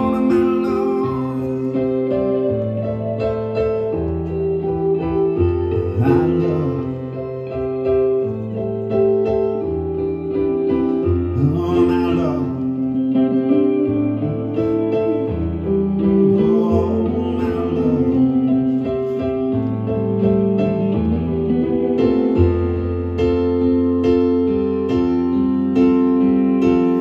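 Live band music: a stage keyboard playing sustained piano-like chords with guitar, the chords changing every second or two.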